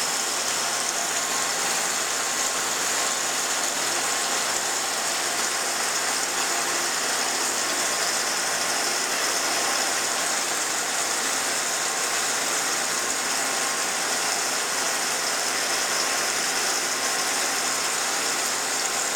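Citizen E32 Swiss-type CNC lathe running a machining cycle: a steady mechanical hum under a strong even hiss, with no change in level.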